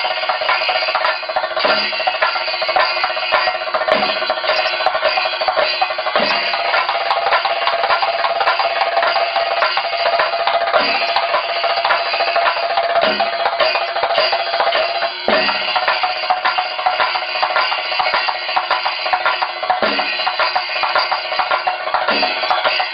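Ensemble of Kerala chenda drums played with sticks in a fast, dense rhythm. A deeper accented beat falls every two seconds or so.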